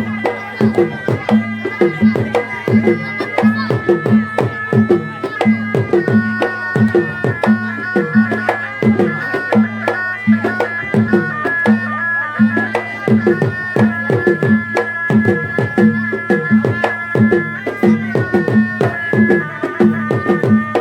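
Malay folk ensemble music. A reedy wind instrument holds long melody notes that step from pitch to pitch over a fast, steady drum pattern, with drum strokes that bend down in pitch and a repeating low pulse.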